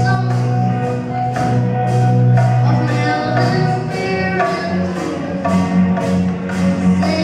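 Live band playing a reggae song with a steady beat over a held bass line.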